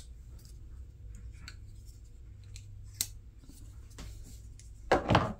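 Folding knives being handled and lifted off a rubber mat: a few light metallic clicks and taps, a sharper click about three seconds in, and a louder handling clatter near the end.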